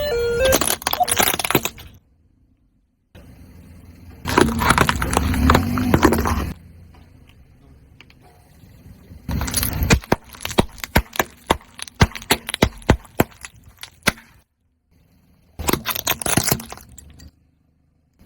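Brittle objects cracking and crunching as a car tyre rolls over and crushes them, in four separate bouts cut one after another. The third bout is a long string of sharp snaps, several a second.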